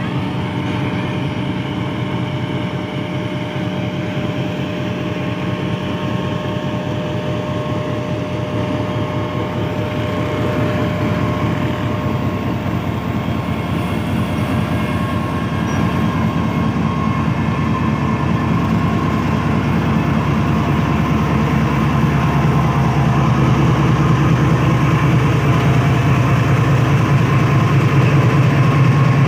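GEU-40 diesel-electric locomotive's engine running as it slowly pulls a loaded freight train away from a stand. The low engine note builds steadily and grows louder in the second half.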